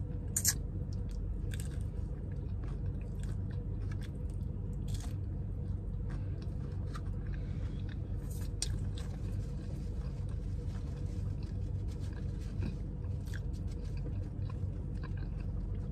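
A person chewing and biting into breaded fried chicken, with occasional soft crunches, over a steady low hum.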